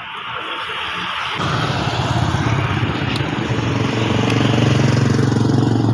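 An engine running, heard from about a second and a half in as a rapid, even low pulsing that grows louder and then holds steady.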